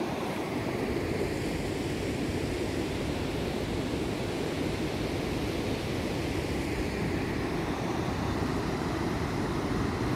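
Steady rush of river water pouring over a low weir.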